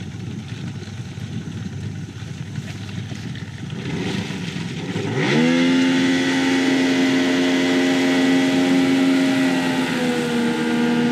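Jet boat's outboard motor throttling up: after a few seconds of rushing noise, the engine note rises quickly about five seconds in and settles into a steady high-revving run, easing off slightly near the end.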